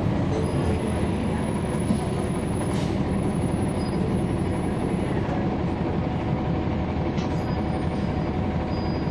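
Cummins ISL9 inline-six diesel of a NABI 40-SFW transit bus running steadily, heard from on board together with road noise. A brief hiss comes about three seconds in.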